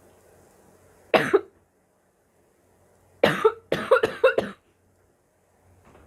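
A girl coughing: one short double cough about a second in, then a fit of about five quick coughs in a row about two seconds later.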